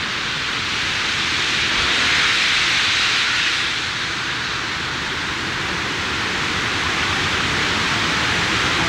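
Steady rushing noise of the Mirage volcano attraction's waterfalls pouring down the rock into the lagoon, with hissing from the steam effects as the eruption dies down. It swells a little about two seconds in.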